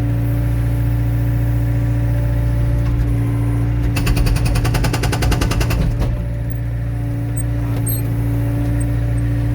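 Excavator's diesel engine running steadily, with its hydraulic breaker hammering rapidly for about two seconds in the middle, roughly a dozen blows a second, as it is driven into a log to split firewood.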